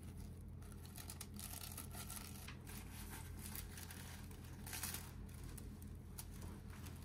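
Faint crinkling and rustling of a mesh net bag being worked off a thin paper tray by hand, in uneven handling bursts with the loudest rustle a little before five seconds in.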